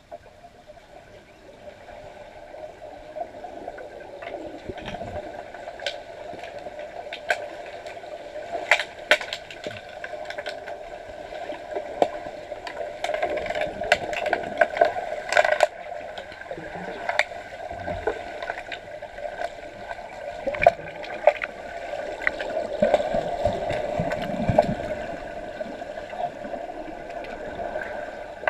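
Muffled underwater pool sound of an underwater hockey game: a steady watery rush, with many sharp clicks and knocks from sticks and puck striking the tiled pool floor. The level builds over the first few seconds.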